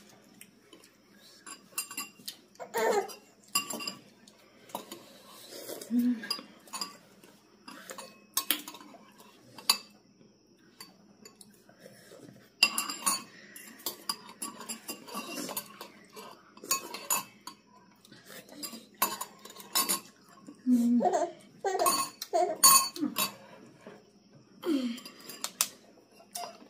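Metal spoons clinking and scraping against ceramic soup bowls during a meal, in short irregular knocks.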